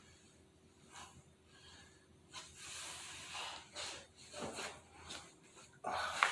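A man breathing hard from the strain of neck bridges, with forceful hissing exhales starting about two seconds in and the loudest exhale near the end.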